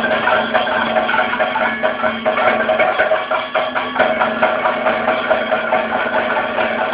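Kathakali percussion ensemble of drums and cymbals playing a fast, dense rhythm over a steady held tone.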